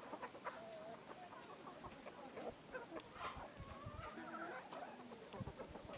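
Several domestic hens clucking, short pitched calls overlapping one another, some bending up or down in pitch.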